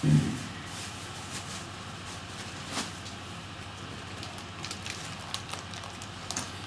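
Rosin-core solder melting onto a hot soldering iron tip as it is tinned, with faint crackles and sizzling over a steady hiss. A short low thump right at the start.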